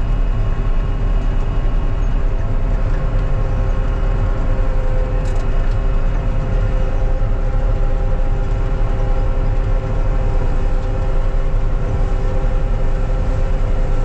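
John Deere 9500 combine running steadily while harvesting soybeans, heard from inside the cab: a constant low rumble with several steady whining tones over it.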